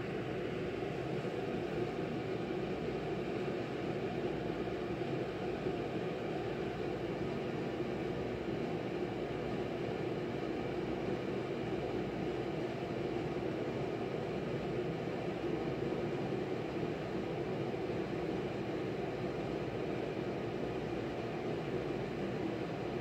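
A steady low hum with an even hiss, unchanging throughout.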